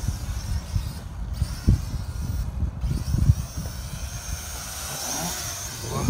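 Small X3 Pioneer quadcopter's motors and propellers whining, growing louder and rising in pitch near the end as it flies in close. Wind buffets the microphone in irregular low thumps.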